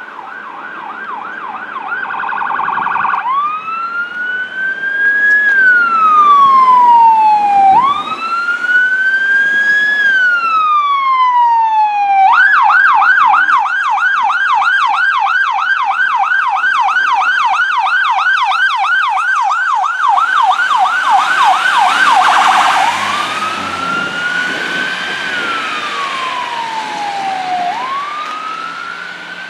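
Fire engine siren going past, starting on a rapid yelp, switching to slow rising-and-falling wail cycles a few seconds in, then to a long stretch of rapid yelp about twelve seconds in, and back to the wail near the end. About twenty seconds in, the truck's engine and road noise swell as it goes by.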